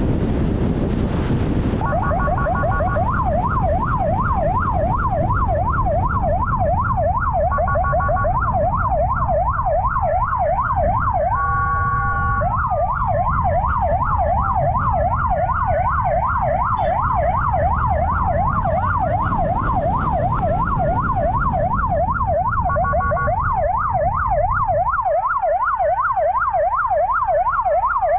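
Police sirens: one on a fast yelp, about four sweeps a second, starting about two seconds in, with a slower wail rising and falling under it and a few short steady horn-like blasts. Wind rush on the microphone fills the low end at first and drops away near the end.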